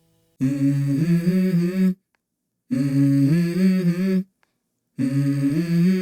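Background music: a wordless vocal line in three short phrases of stepping pitch, each cut off by a moment of silence.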